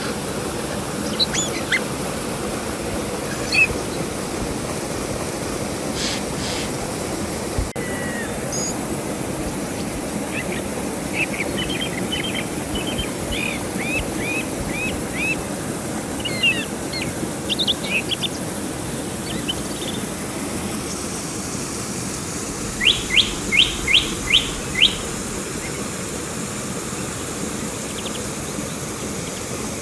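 Songbirds chirping and calling over the steady rush of a river. A run of quick chirps comes around the middle, and a burst of about six rapid rising notes near the end.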